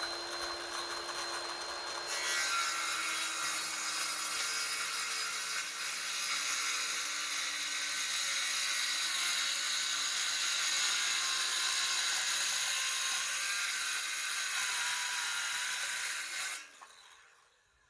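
A power tool running steadily while working wood: a dense hiss with a motor whine. It grows louder about two seconds in, as the tool bites into the wood, and winds down and stops near the end.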